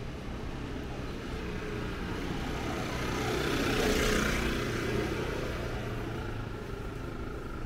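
A motor vehicle passing close by, its engine and tyre noise swelling to a peak about four seconds in and then fading.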